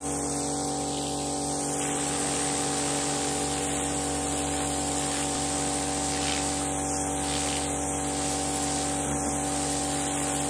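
Pressure washer lance blasting a jet of water onto concrete patio slabs: a steady hiss of spray over the steady hum of the washer's pump and motor.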